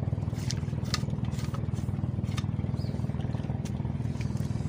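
A steady low motor drone with a fine, even pulsing, with a few faint light ticks about a second in and again a little later.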